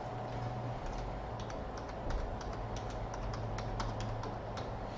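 Typing on a keyboard: a quick, irregular run of key clicks.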